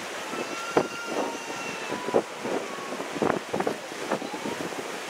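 Wind buffeting the microphone in uneven gusts on a ferry crossing the river, with a few faint thin steady tones in the first couple of seconds.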